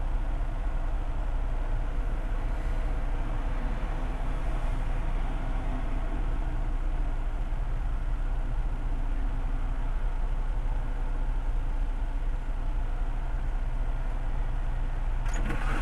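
Car engine idling with a steady low rumble, heard from inside the cabin with the driver's window open.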